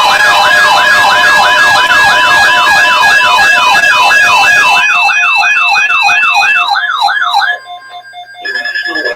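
Emergency weather alert tones, several layered: fast repeating rising siren-like sweeps, about three a second, over steady warning tones. They cut off about seven and a half seconds in, and after a brief lull a new steady high alert tone starts.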